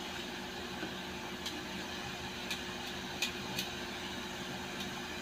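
Pork fat sizzling steadily in a hot non-stick mini rice cooker pot, with a few light clicks of metal tongs against the pot.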